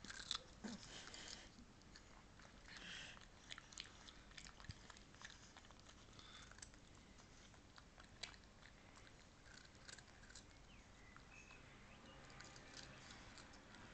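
A pug biting and chewing raw carrot: faint, irregular crunches and wet clicks of its jaws, busiest in the first few seconds and sparser after.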